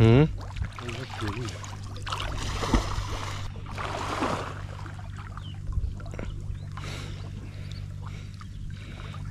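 Water sloshing and splashing as people wade chest-deep through muddy flood water, loudest a few seconds in. A short rising shout comes at the very start, with a few brief calls after it and a steady low hum underneath.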